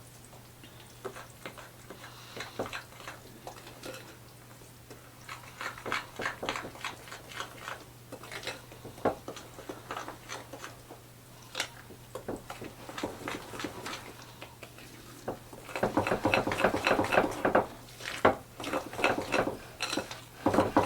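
A utensil stirring thick cake batter in a mixing bowl, clicking and scraping against the bowl in uneven runs that grow faster and louder over the last few seconds.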